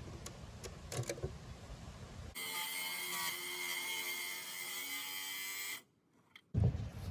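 Knocks and clicks of handling, then a small electric motor whirring steadily for about three seconds, starting and stopping abruptly.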